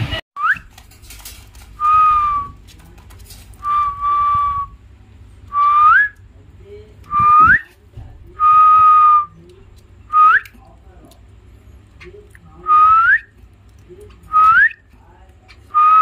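About ten short whistles spaced a second or two apart, each a clear steady note that hooks upward in pitch at its end.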